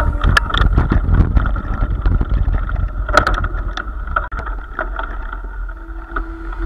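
Mountain bike riding over a rough, stony dirt track: low wind rumble on the microphone with constant rattles and knocks as the bike and its mounted camera jolt over the stones.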